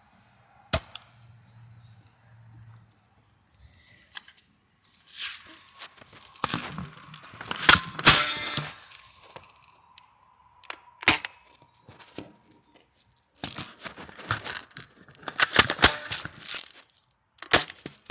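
Airsoft gun firing BBs at a plastic cup of water, a few sharp cracks spaced seconds apart, among longer stretches of rasping, tearing noise.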